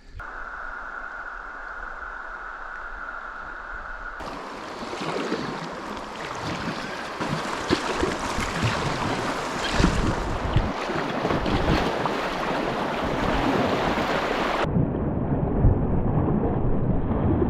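Rushing, churning river water around a kayak, with wind buffeting the microphone. The sound is quieter at first, then cuts abruptly about four seconds in to louder, rougher water noise with occasional splashes, and cuts again near the end.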